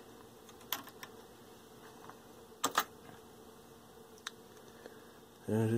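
Faint, steady buzzing AC hum from a Denon PMA-770 amplifier's phono input, a sign that the phono stage is not working. There are a few sharp clicks along the way.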